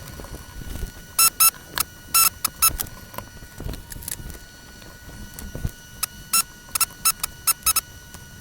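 Sped-up workbench sounds of capacitors being desoldered and replaced on a receiver's power-supply board, turned by the speed-up into short, squeaky high-pitched chirps in quick clusters, with scattered light knocks.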